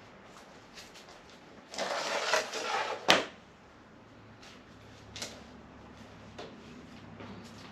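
Garden pots and potting soil being handled: a scraping, rustling rush about two seconds in that ends in a sharp knock, then a few light knocks.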